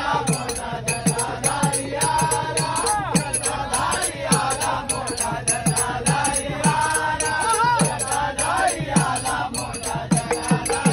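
A group of men singing a Marathi devotional bhajan together, kept in time by brass hand cymbals (taal) clashing in a steady beat and a hand drum whose low strokes drop in pitch.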